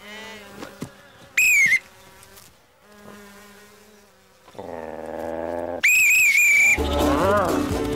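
Two blasts on a herding whistle: a short one about a second and a half in, and a longer, wavering trill about six seconds in. Just before the second blast comes a low buzzing call. Music starts near the end.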